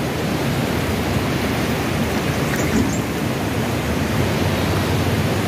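Fast-flowing river water rushing through a deep gorge, a steady loud rush with no break.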